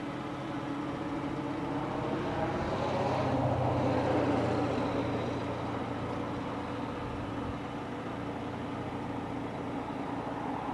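Car engine running with road noise, heard from inside the car. The engine sound rises about three to four seconds in, then eases back to a steady level.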